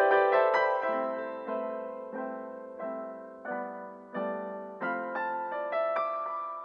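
Background piano music: gentle chords struck about every two-thirds of a second, each ringing and fading. A last chord is left to ring out near the end.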